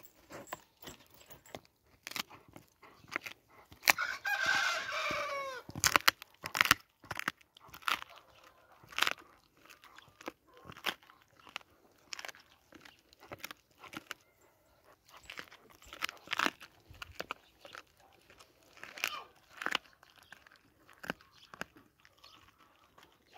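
Kangal dog gnawing a raw meaty leg bone, with frequent sharp crunches and cracks of teeth on bone. A rooster crows once, loudly, about four seconds in.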